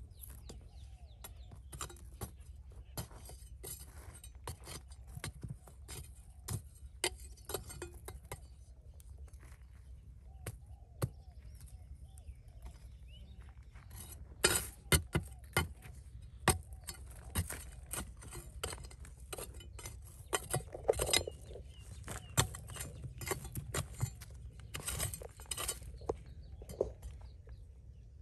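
Small hard stones clicking and clinking against one another in irregular taps as rough mined gem material is handled and picked through. The taps come thicker in the second half, over a steady low hum.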